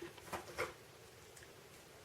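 A few faint, light clicks and taps of small parts being handled, mostly in the first second, with one more about halfway through.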